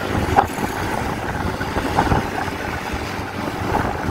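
Motorcycle running on the road, heard from the rider's position: steady engine and road noise.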